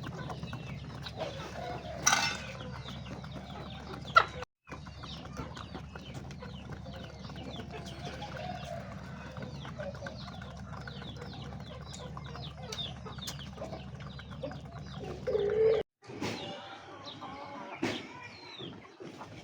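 A flock of chickens clucking and calling, many short calls overlapping, over a steady low hum. The sound drops out briefly twice.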